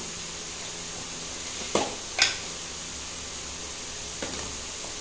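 Diced potatoes frying in oil in a metal kadai: a steady sizzle, with two sharp clicks about two seconds in and a fainter one about four seconds in.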